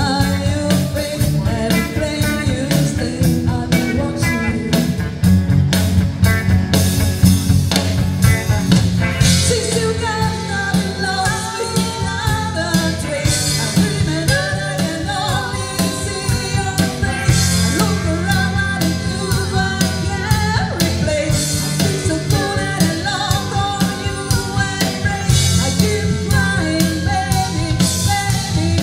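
A live band playing: a woman singing lead over electric guitars, bass guitar and a drum kit.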